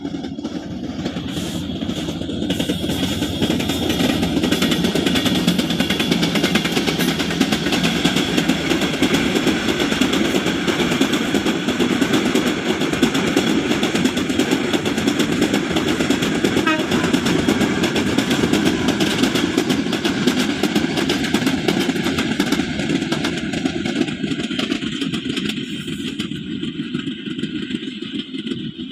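Meter-gauge passenger train running past, a steady loud rumble of the coaches on the track that builds over the first few seconds and fades near the end.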